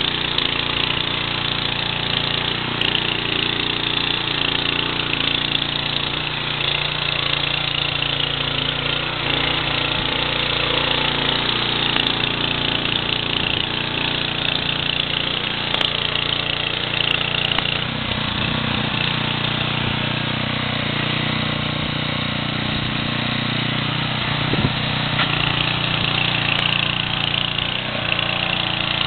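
Viking HB 585 garden tiller's Kohler petrol engine running steadily under load as its rotating tines dig through the soil.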